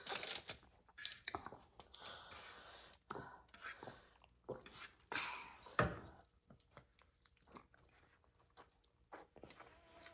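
People chewing food, with irregular short crunches and mouth smacks.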